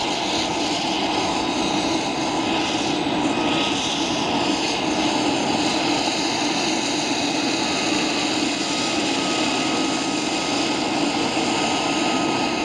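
Boeing Chinook HC4 tandem-rotor helicopter running on the ground with its rotors turning: its twin turboshaft engines and rotors make a steady, loud noise. A thin steady whine comes in about halfway through.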